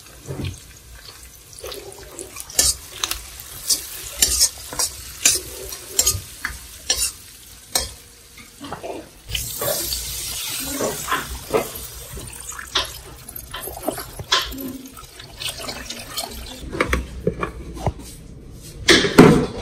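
A spoon or ladle knocking and scraping against a pan as a spice tempering is stirred. About nine seconds in, a hissing sizzle starts and runs for several seconds, with more clicks from the stirring and a louder knock near the end.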